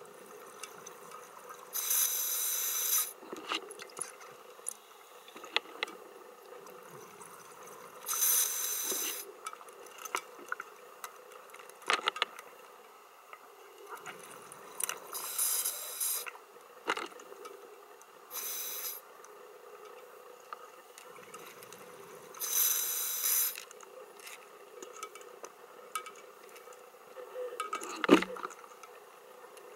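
Scuba diver breathing underwater: five bursts of exhaled bubbles, each about a second long, a few seconds apart, with a faint steady hum between them. Scattered small clicks, and a sharp knock near the end.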